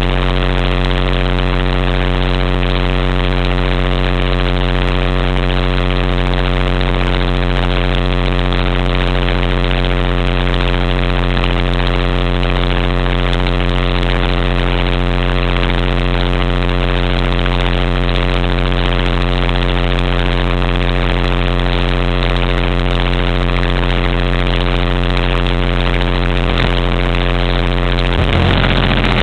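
Electric motor and rotors of an HK-500GT radio-controlled helicopter running at a steady speed, picked up by a camera mounted on the airframe: a constant whine made of many even tones over a rushing noise. The sound shifts just before the end.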